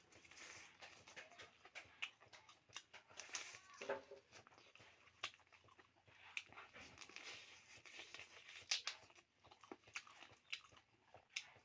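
Faint, close-miked eating sounds: chewing and biting, with many short wet mouth clicks and crunches scattered irregularly, and a brief pitched sound about four seconds in.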